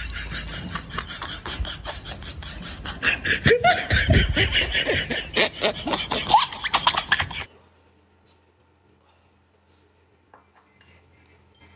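Noodles being slurped loudly and rapidly. The sound cuts off abruptly about seven seconds in, leaving only faint room sound.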